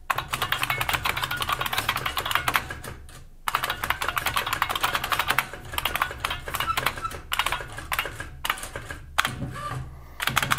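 Fast typing on the IBM 6780 Quietwriter electronic typewriter's very loud keyboard: a dense run of key clicks, with a brief pause about three seconds in and two more near the end, over a steady low hum. The machine is in typewriter mode, so each key press prints its letter at once.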